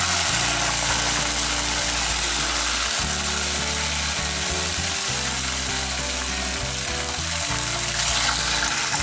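Milk-soaked semolina poured into hot ghee and caramelized sugar in a frying pan, hissing and sizzling hard as the milk hits the hot caramel.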